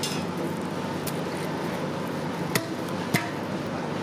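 A steady rushing background noise with three short, sharp knocks: one about a second in, then two more close together near the end.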